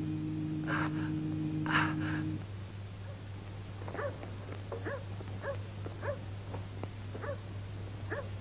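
A held low chord ends about two seconds in, then a dog barks repeatedly, about twice a second, over a steady low hum.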